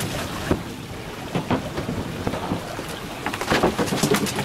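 Water splashing and wind noise aboard a small fishing boat, turning into a fast patter of splashes and slaps from about three seconds in as a hooked mahi-mahi is brought to the boat.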